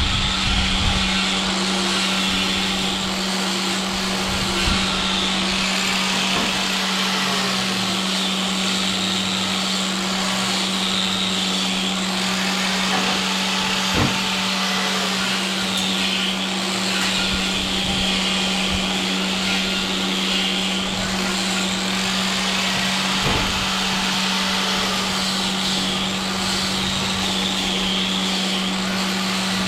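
A machine running steadily with a constant low hum and a hissing roar over it, with a few sharp knocks, the clearest about halfway through and again later.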